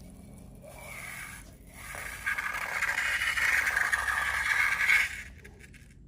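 Scraping from slime-making with balloons, soft at first, louder from about two seconds in, then stopping about a second before the end.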